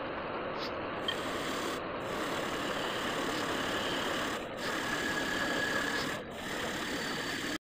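Wire wheel brush spinning in a drill press, scrubbing a steel washer and then a threaded bolt clean: a steady rasping hiss with two brief dips where the part is eased off the wheel, cutting off suddenly near the end.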